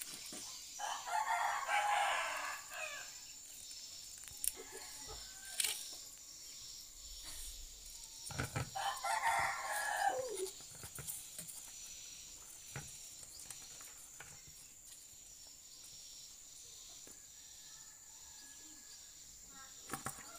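A rooster crowing twice, about a second in and again around eight seconds in, the second crow trailing off downward.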